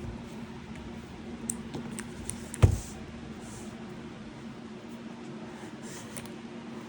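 Handling of a mechanical keyboard: a few light clicks, then one sharp knock about two and a half seconds in, over a steady low hum.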